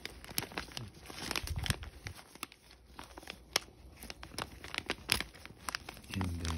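Small plastic parts bags being handled and crinkled, with irregular crackles and clicks. A low steady hum starts just before the end.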